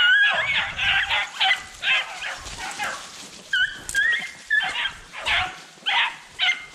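Beagles barking and baying in quick repeated bursts, with a few higher drawn-out yelping notes near the middle, the sound of the pack running a rabbit's track.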